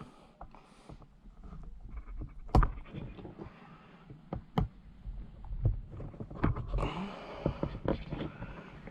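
Plastic clicks and knocks, with rustling handling noise, as a door pull handle and its retaining clips are pushed down into place on a Saab 9-5 door trim panel. The sharpest clicks come about two and a half and four and a half seconds in, with a busier run of clicks and rustling near the end.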